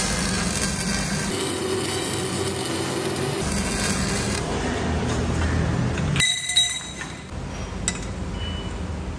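Arc welding on steel tubing: the welding arc crackles and hisses steadily, then cuts out about six seconds in, followed by a couple of sharp metallic clinks.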